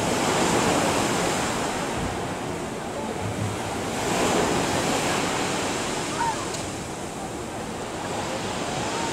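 Sea waves washing and lapping, with wind on the microphone; the wash swells a little twice.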